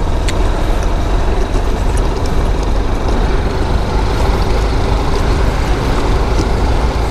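Motorcycle riding at steady speed: heavy wind rush on the microphone with the engine running underneath.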